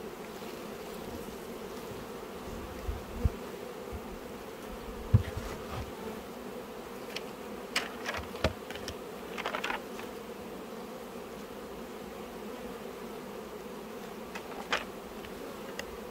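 Honeybees buzzing in a steady, even hum around open hive boxes, with a few short knocks and clicks scattered through it.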